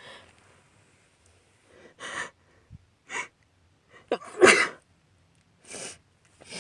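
A woman's allergy sneezing. Short sharp sniffs and a catching, rising inhale lead to one loud sneeze about four and a half seconds in, then more sniffs follow.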